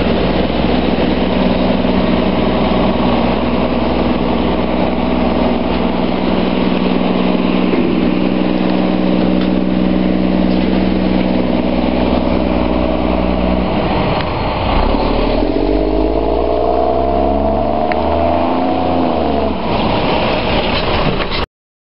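Volvo WX front-loader garbage truck's diesel engine idling with a steady hum. About fourteen seconds in it revs up, then falls back before the sound cuts off abruptly near the end.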